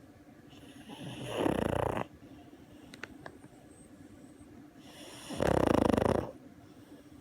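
Pug snoring in its sleep: two snores about four seconds apart, each lasting about a second.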